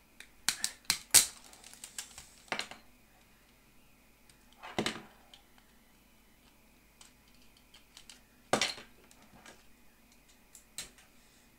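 Plastic case parts of an opened DT830B digital multimeter clicking and knocking as they are handled and set down on a wooden desk: a quick run of sharp clicks near the start, then two louder knocks several seconds apart.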